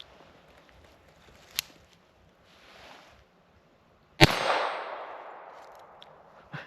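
Raven Arms .25 Auto pocket pistol firing a single shot about four seconds in, its report echoing and dying away over the next two seconds. A sharp click comes about a second and a half in, before the shot.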